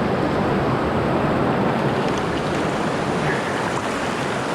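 Rushing river water in whitewater rapids: a steady, even rush of moving current.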